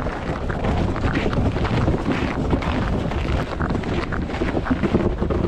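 Wind buffeting the microphone: a continuous, uneven rushing noise, heaviest in the low end.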